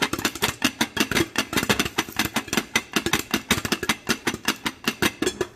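Popcorn popping and rattling in a stainless steel pot with a glass lid that is being shaken over a gas burner: rapid, sharp clicks and rattles, several a second, that stop suddenly at the end. The popping is nearing its finish, which is the cue that the popcorn is about done.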